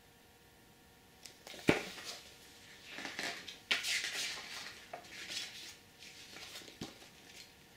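Large paper wall calendar being handled and its page turned: a sharp tap about two seconds in, then irregular rustling and crinkling of the paper that tails off.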